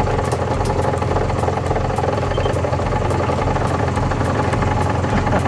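Small fishing boat's engine idling steadily, a low even hum with a regular pulse.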